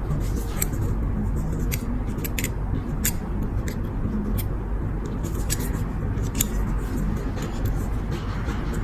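Scattered small sharp clicks and taps of a lighter and its metal parts being handled during repair, irregular, over a steady low rumble.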